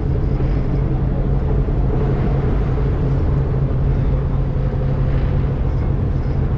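Small fishing boat's engine running steadily while trolling, a constant low drone with water and wind noise over it.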